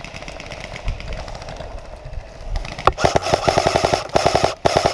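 Airsoft rifle firing on full auto: rapid, evenly spaced clicking shots in a burst about three seconds in, followed by a few shorter bursts.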